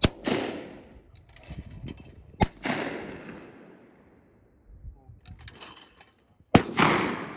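Three shotgun shots during trap shooting. The first comes at the very start, the second about two and a half seconds in and the third near the end, and each dies away slowly over a second or so. Between the shots come short bursts of mechanical rattling from the electric clay target thrower.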